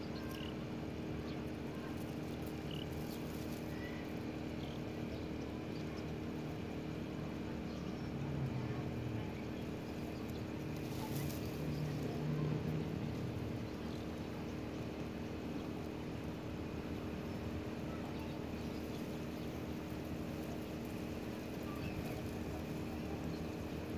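Steady low mechanical hum made up of several held tones over a background hiss, with a brief louder rustle about eleven seconds in.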